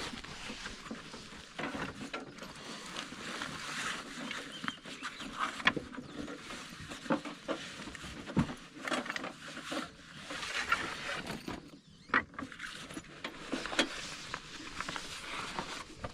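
Food sizzling on a Blackstone flat-top griddle: a steady crackling hiss with scattered pops.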